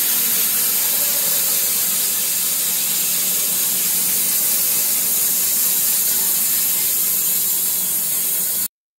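Wood-Mizer LT15 Wide band sawmill running, its band blade sawing through a box elder burl log with a steady hiss. It cuts off suddenly near the end.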